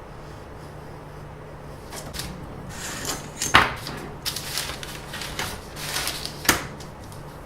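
Close handling noise: rustling and scraping with two sharp knocks about three seconds apart, the first the loudest, over a steady low hum.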